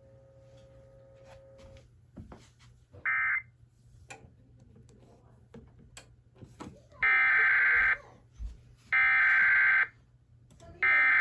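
Emergency Alert System SAME data bursts: a short burst of the shrill, buzzing digital tones about three seconds in, then three identical header bursts of about a second each, a second apart, beginning about seven seconds in. These mark the start of a relayed alert.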